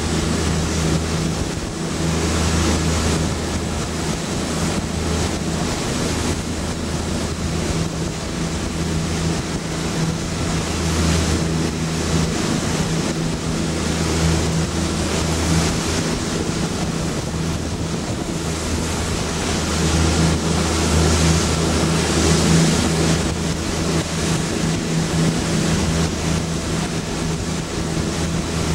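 A boat's engine running with a steady low hum, under wind buffeting the microphone and the wash of sea water. The wind noise swells and eases by turns.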